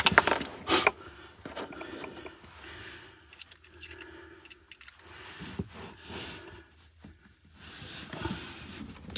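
Hand screwdriver turning a screw into a camper's wall panel: faint scraping and small clicks of the driver and screw, with one sharper tick about a second in.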